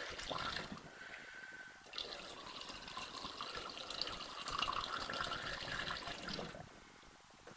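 Ordinary water being poured from a container into a car engine's cooling system, running and gurgling into the filler; the flow dies away near the end.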